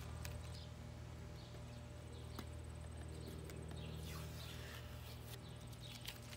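Quiet outdoor background: a steady low hum with faint, scattered bird chirps.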